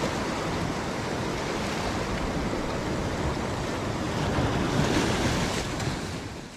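Rough sea surf breaking and washing over rocks, with wind on the microphone. It swells a little late on, then fades out near the end.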